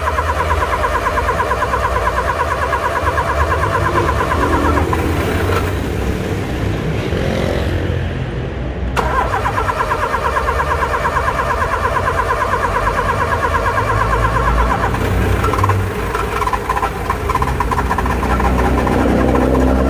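A car's starting system chattering with a rapid 'tec tec' clicking while the key is held in start, in two long stretches with a pause of about four seconds between; the sound of a starting fault, with the engine not catching.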